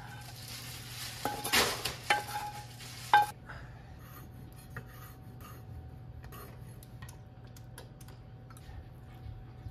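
Cooked bacon and mushrooms scraped out of a metal pan into a glass bowl, with several sharp clinks of utensil, pan and bowl knocking together, the loudest about three seconds in. Then light knife taps on a wooden cutting board as cherry tomatoes are cut.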